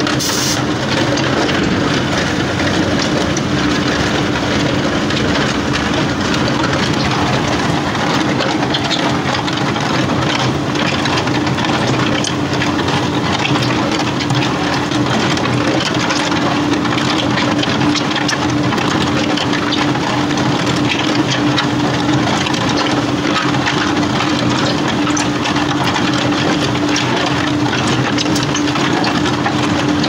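Concrete batching plant machinery running steadily and loudly, with a constant hum and a scatter of small rattles.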